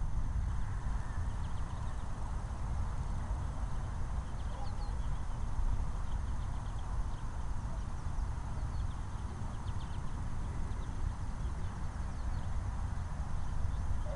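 Wind rumbling on the microphone, with faint chirps of small birds scattered through it.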